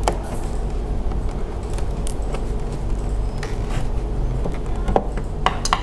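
Plastic snap clips of an all-in-one PC's back cover clicking as they are pried loose with a screwdriver: a few scattered sharp clicks over a steady low hum.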